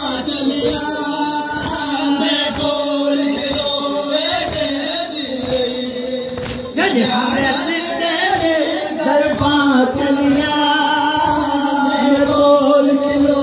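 Men's voices singing a noha, a Muharram mourning lament, over rhythmic chest-beating (matam) thuds about twice a second.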